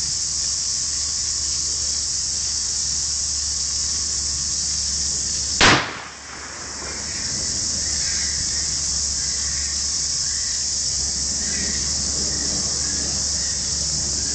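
A single 12-gauge shotgun shot, firing a solid 1 oz lead slug at a bathtub, cracks out about five and a half seconds in. A steady, high-pitched insect chorus runs underneath.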